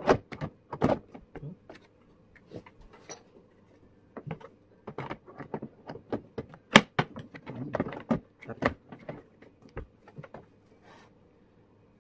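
Hard plastic of a lawn mower's grass catcher and rear flap knocking and clicking as the catcher is handled and fitted: a run of sharp clicks and knocks, busiest around the start and from about four to nine seconds in, dying away near the end.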